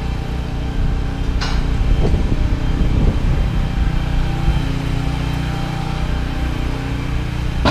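Mobile crane's diesel engine running steadily as it lowers a steel beam, with a short knock about a second and a half in and another at the very end.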